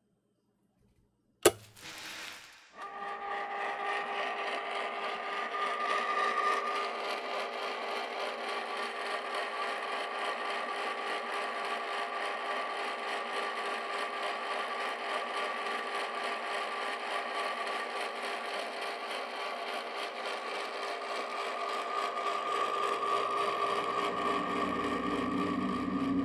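A single click, then a small motor running with a steady whir and several held tones, on without a break for over twenty seconds.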